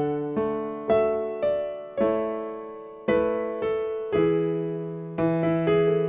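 Casio Privia PX-160 88-key digital piano being played: a slow passage of chords struck about once or twice a second over held bass notes, each chord left to ring and fade.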